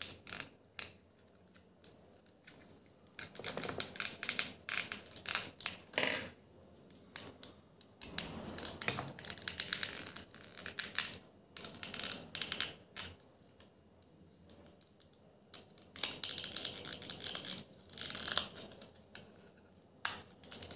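Small plastic clicks and scraping as the snap-fit locks of an optical mouse's plastic shell are worked open, first with a small screwdriver and then by hand. The sound comes in several bursts of rapid clicking, with one sharp snap about six seconds in.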